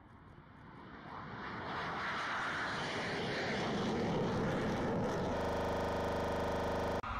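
F-16 fighter jet's engine noise swelling as it takes off and climbs away, building to a loud steady rush by about two seconds in. About five seconds in it changes to a steady buzzing drone, which cuts off suddenly near the end.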